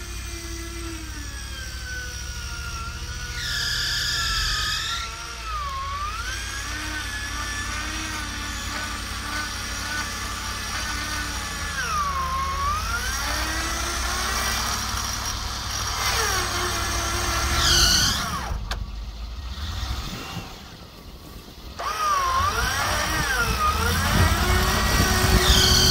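Range Rover's engine running while its electric winch, a 12-volt motor fed 24 volts, whines as it drags the truck uphill through snow; the whine sags in pitch about three times as the load comes on. Three short high squeals of the alternator belt cut through it, which the owner puts down to a slightly loose belt on the 250-amp alternator.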